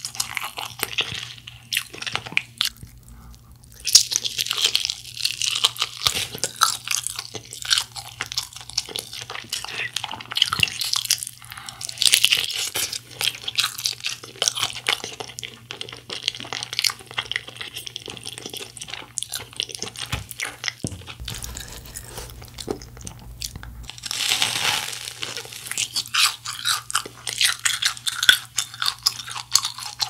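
Crunching bites into a fried chicken drumstick and chewing, with louder bursts of crunch coming every several seconds.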